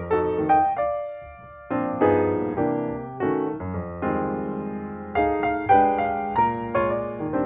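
Background piano music: single notes and chords struck one after another, each fading out, with a short lull about a second in.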